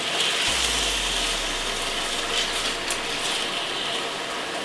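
Ground beef sizzling in a frying pan as it is broken up and stirred, a steady hiss with a few small crackles.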